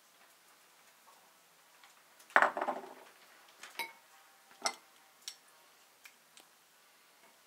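A small glass dish set down on a wooden table with a clatter about two and a half seconds in, followed by a metal spoon clinking several times against a glass bowl and dish.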